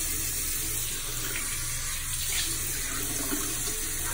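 Bathroom sink tap running steadily.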